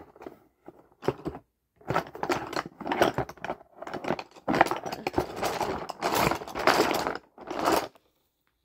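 Close handling noise: a run of rustling, clicking and crunching bursts, starting about two seconds in and stopping near the end.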